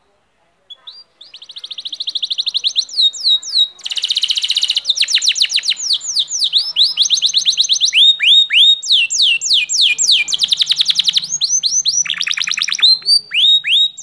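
Domestic canary singing a long unbroken song, starting about a second in: fast trills of rapidly repeated falling notes, switching from one trill to the next every second or two.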